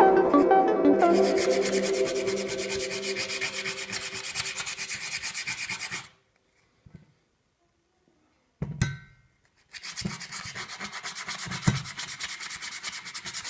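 Fast, even rubbing strokes, several a second, in two runs of about four to five seconds each, with a single thump in the pause between them.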